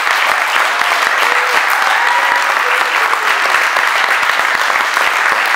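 Audience applauding, dense steady clapping from a roomful of people.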